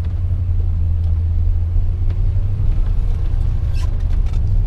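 Steady low rumble inside the cab of a Chevy 3500 pickup under way: its newly built Gen VI 454 big-block V8 running along with road noise.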